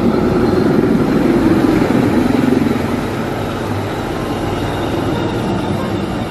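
Formation of helicopters flying overhead: a loud, steady rotor and engine rumble, heaviest for the first few seconds and easing slightly after about three seconds.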